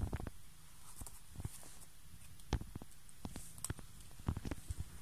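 A ferret's claws tapping and scrabbling on a laminate floor as it rolls over and scampers about: scattered, irregular light clicks.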